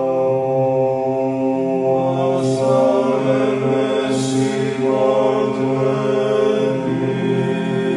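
Slow sung chant with long held notes in a low, male vocal range, the pitch changing every couple of seconds.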